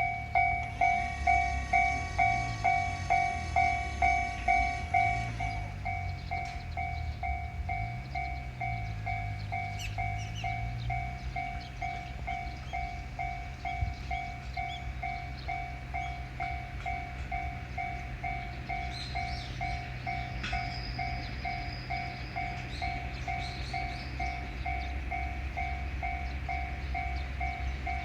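Japanese railroad crossing warning bell ringing steadily, a little under two strokes a second, loudest for the first five seconds. Under it, a JR 221 series electric train runs past with a low motor hum that rises and falls.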